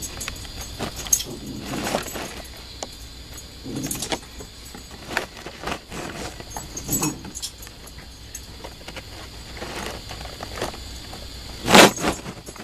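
Squirrel gnawing on a wooden door frame: irregular scraping, crunching bites with pauses, and one louder scrape or knock near the end.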